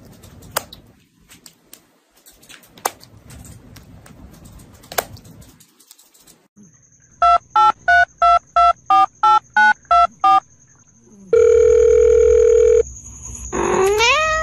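A run of about eleven quick two-tone electronic beeps like a telephone keypad, followed by a steady electronic phone tone lasting about a second and a half. Before the beeps there is faint rustling with a few sharp clicks, and near the end a short rising call.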